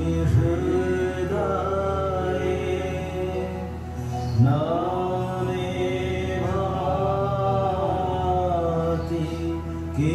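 Devotional chanting: a voice sings long, drawn-out phrases over a steady low drone, a new phrase starting about four seconds in.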